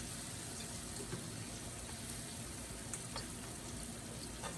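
Red snapper pieces searing in hot oil in a metal pot: a steady sizzle with a few faint scattered clicks, as the pieces are turned with a metal spatula.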